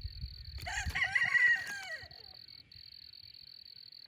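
A rooster crows once, about a second and a half long, starting just under a second in. Underneath, insects keep up a steady high trill.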